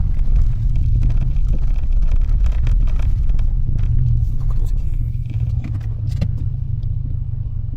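Steady low rumble of a Mitsubishi Delica being driven, engine and road noise heard from inside the cabin. It eases a little after about five seconds.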